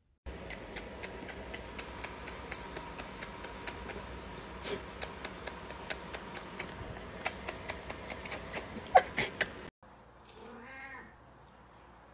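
A domestic cat vocalizing, with one short loud cry near the end, over steady background noise and many small clicks. The sound cuts off suddenly shortly after the cry.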